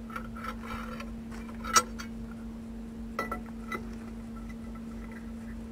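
Metal tools clinking against a truck's front wheel hub as a long socket wrench is worked on it: one sharp clink about two seconds in and a few lighter ones later, over a steady low hum.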